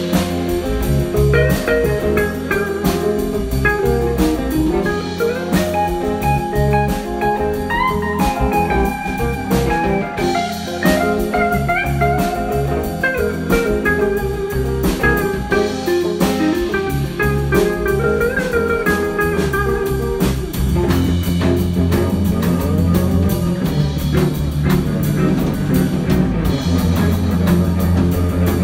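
Instrumental band music with electric guitar and drum kit in a blues-rock style, with bending guitar notes over a steady beat; the low end gets heavier about two-thirds of the way through.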